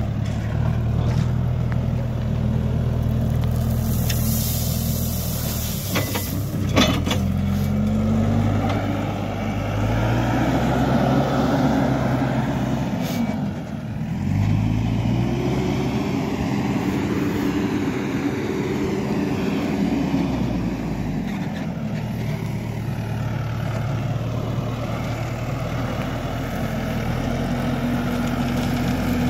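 HIDROMEK backhoe loader's diesel engine running and revving up and easing off several times as it works, with a short hiss about four seconds in and a few sharp knocks soon after.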